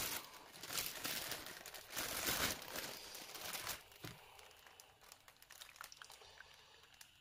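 Plastic food packaging crinkling and rustling as it is handled, for about four seconds; after that only a few faint clicks and rustles.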